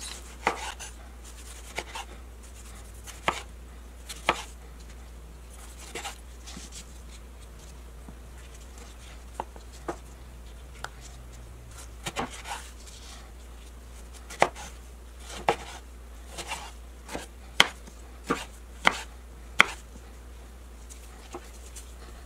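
Kitchen knife slicing tomatoes on a wooden cutting board: irregular sharp knocks as the blade hits the board, spaced out at first and coming closer together in the second half.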